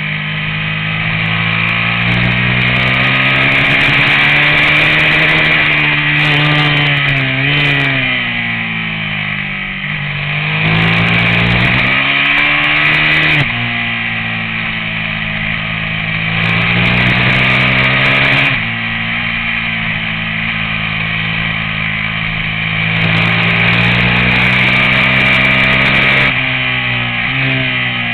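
Race motorcycle engine at racing speed, its pitch climbing under throttle and dropping sharply several times as the throttle is shut or gears are changed for corners.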